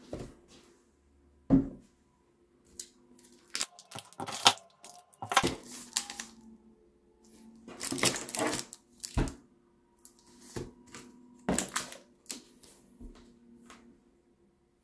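Groceries being handled and set down on a wooden table: knocks of a milk carton and packets against the wood, with crinkling of plastic and foil chocolate wrappers. A faint steady hum runs underneath.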